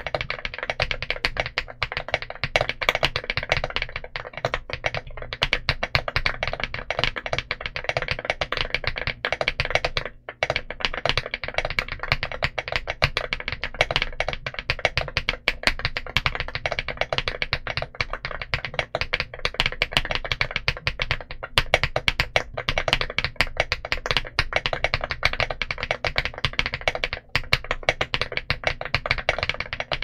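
Steady fast typing on a Mchose GX87 Ultra aluminium TKL mechanical keyboard with KTT Vintage White linear switches and Drop MT3 Camillo keycaps: a dense stream of keystroke clacks, with one brief pause about ten seconds in.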